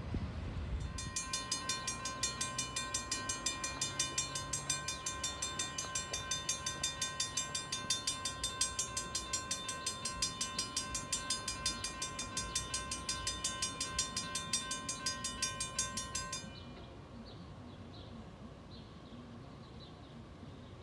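Railroad grade-crossing bell ringing in a rapid, even beat as the crossing signals activate and the gate lowers for an approaching train. It stops abruptly about sixteen seconds in, once the gate is down, leaving faint birdsong.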